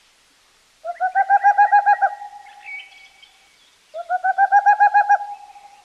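An owl calling twice, three seconds apart. Each call is a trill of about ten rapid pulsing notes at one pitch, lasting about a second and trailing off. A fainter, higher chirp comes between the two calls.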